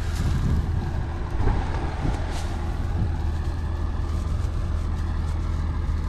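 Tractor engine running steadily, a low even drone, with a few short rustles and crackles of dry hay as a hand handles a freshly made small square bale.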